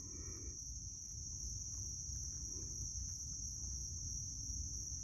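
Steady, shrill insect chorus, one unbroken high drone, over a low rumble.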